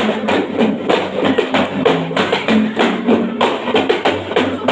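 Kei-style gambus music: plucked lute notes over a quick, steady beat of hand-drum strokes.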